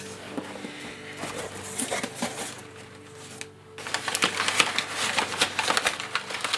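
Crumpled packing paper rustling and crinkling, and cardboard flaps being handled, as a box is unpacked; louder and busier from about four seconds in.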